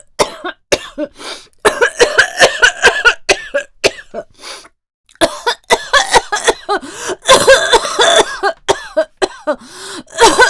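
A woman coughing in repeated fits: runs of short, harsh coughs, with a brief pause a little before the middle. The coughing is acted, by a voice actress playing someone ill with a cough that will not go away.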